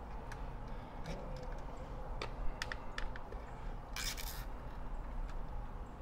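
Plastic zip tie being threaded and pulled tight around a power cord: scattered light clicks, then a short ratcheting zip about four seconds in.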